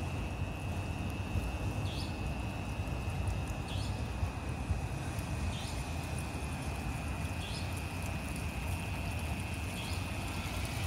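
Steady outdoor background rumble with a constant thin high whine, and a short high chirp repeating about every two seconds.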